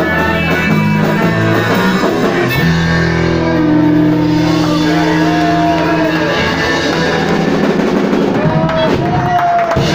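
Live rock band playing: electric guitars, bass guitar and a drum kit, with long held notes and a few bends.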